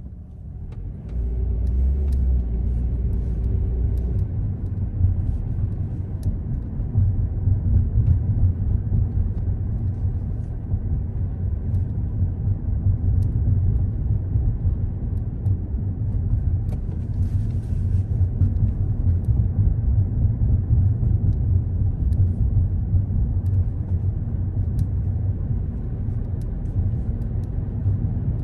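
Car driving on city streets: a steady low rumble of engine and road noise that swells about a second in, with a low hum for the first few seconds.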